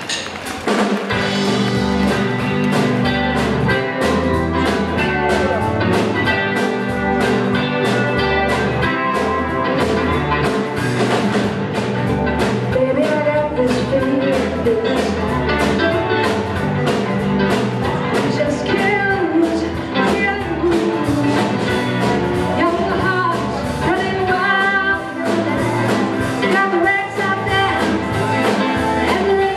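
Live band playing a rock song: a drum kit keeps a steady beat under electric and acoustic guitars and keyboard, with a singing voice.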